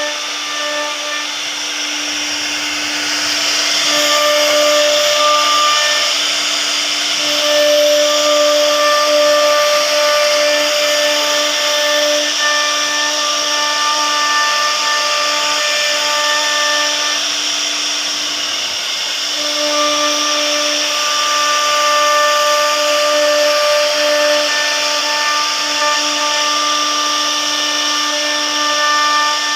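CNC router spindle running and its bit cutting wood, carving a door panel: a steady whine with even overtones over a dense cutting hiss. The whine drops away briefly twice as the cutting load changes.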